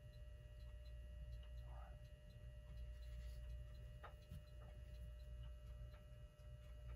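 Near silence: a faint steady hum with light, evenly spaced ticking a few times a second, and a single faint click about four seconds in.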